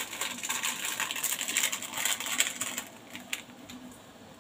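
Plastic seasoning sachet crinkling and rustling as its powder is shaken out over the wok, stopping about three seconds in with a small click.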